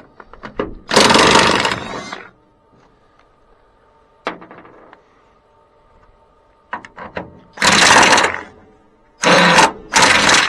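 A power impact wrench hammering in short bursts on the rusted radiator bolts of a Cat D6B dozer: one burst of about a second near the start, then three quicker bursts close together near the end. Light metal clicks of sockets and tools fall between the bursts.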